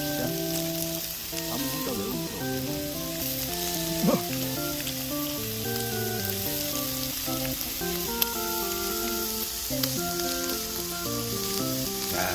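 Beef ribeye and sausages sizzling steadily on a hot stone griddle, with a melody of held notes from background music playing over it.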